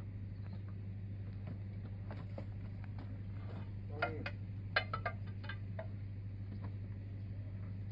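A running engine hums steadily and low, while a few sharp metal knocks and clinks ring out about halfway through as a bar is worked against a mud-caked haul-truck wheel rim during tyre removal.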